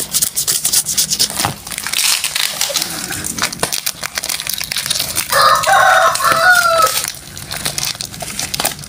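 Plastic wrapping crinkling and rustling as packed parts are handled. About five seconds in, a rooster crows loudly for just under two seconds, its call rising in pitch at the end.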